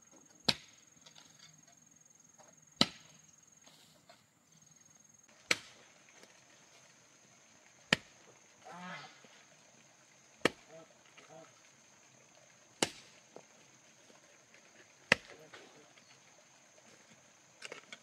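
A long-handled hoe chopping into dry earth with sharp thuds, one stroke about every two and a half seconds, eight in all.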